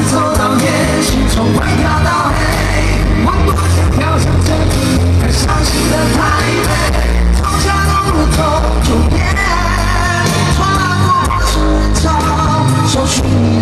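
Live pop-rock band with a male lead singer, played loud through a concert PA with heavy bass, picked up close to the loudspeakers so the sound is harsh and overloaded.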